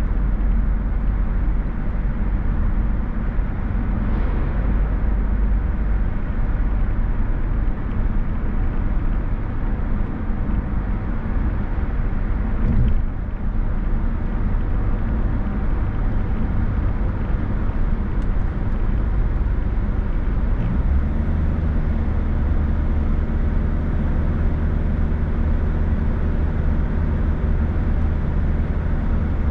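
Car driving along a road: steady engine hum and tyre noise, with a short knock about thirteen seconds in and a shift in the low hum about twenty-one seconds in.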